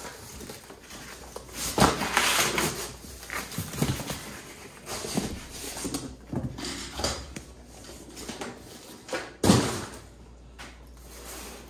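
Cardboard shipping box being opened and pulled off by hand: flaps rustling and cardboard scraping in irregular bursts, with a sharp thump near the end as a box comes down on a steel workbench.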